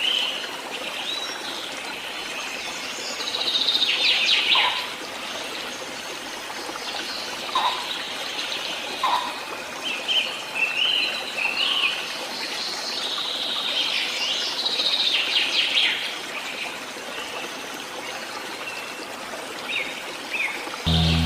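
Wild birds chirping and singing in short scattered phrases over the steady rush of running water. Music comes back in near the end.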